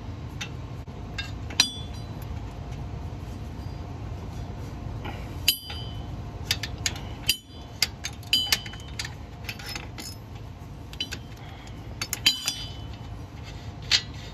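Socket and ratchet clinking against metal while a rusted upstream exhaust O2 sensor is cracked loose: scattered sharp metallic clinks with a short ring, some in quick clusters, over a steady low hum.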